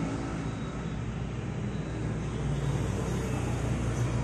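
Steady low background rumble and hum that swells slightly about halfway through.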